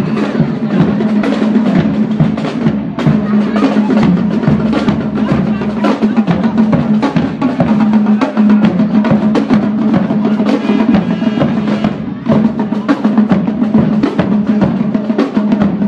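Marching band playing as it passes, its drumline of snare and tenor drums beating out a steady stream of strokes over a held low note.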